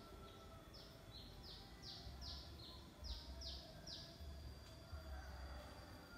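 Faint bird call: a run of about nine quick high notes, each sliding down in pitch, a little over two a second, stopping about four seconds in.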